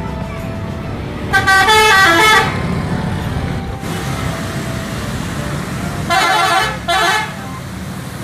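Indonesian buses sounding multi-tone musical 'telolet' horns that step between notes, in two bursts of about a second each: one a little over a second in and one about two-thirds of the way through. Steady traffic and engine noise runs underneath.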